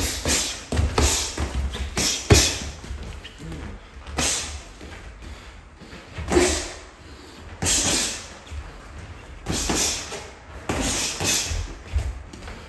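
Boxing sparring: gloved punches landing on gloves and headgear, with the boxers' sharp exhales, in irregular bursts every second or two.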